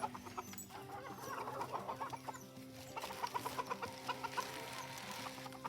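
Chickens clucking, many short quick calls overlapping throughout.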